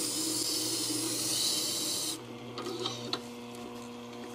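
Steel plane iron in a jig being ground on a Tormek wet grinder's turning stone: a steady hissing scrape over the low hum of the grinder's motor. About two seconds in the scrape stops abruptly as the blade is lifted off, leaving the motor hum and a few light clicks of the jig being handled.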